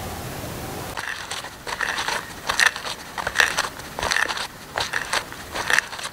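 Hand auger bit boring into a block of wood, starting about a second in: a crunching cut with each turn of the bit, repeating roughly every 0.8 s.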